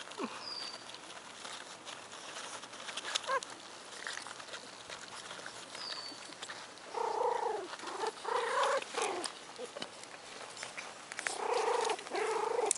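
Four-week-old American Hairless Terrier puppies whining as they play-fight, in several drawn-out cries bunched past the middle and again near the end.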